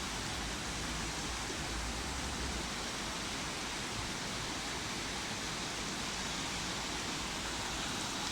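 Steady outdoor rushing noise, with low wind rumble on the microphone in the first two or three seconds.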